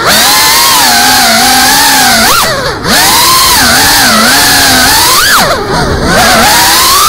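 Brushless motors and propellers of a GEPRC CineLog35 FPV cinewhoop whining, the pitch rising and falling with the throttle. Two brief dips in the whine, about two and a half seconds in and again near six seconds, as the throttle is cut.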